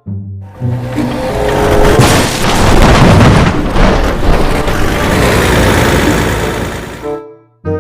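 A long, loud rumbling boom of noise over background music, cutting off suddenly about seven seconds in.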